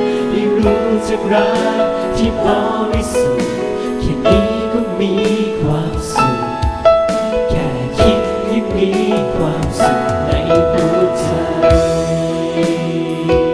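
Music: a Thai song with held notes over a steady drum beat.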